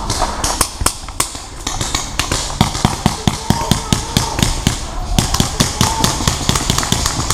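Quick footfalls on a dirt path, about four or five thuds a second from about two and a half seconds in, with the knocking of carried paintball gear, as a player moves at a run.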